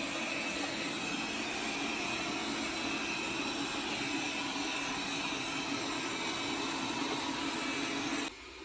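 Xiaomi Mijia 3C robot vacuum cleaner running steadily, a low hum under a high whine, cutting off suddenly near the end.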